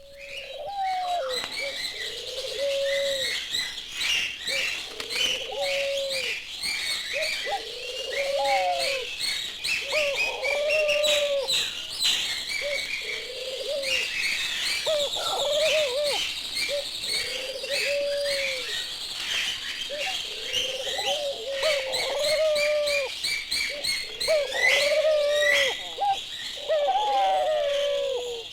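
A recorded flock of birds: low cooing calls, typical of pigeons or doves, repeat every second or two over constant high chirping and twittering from many smaller birds.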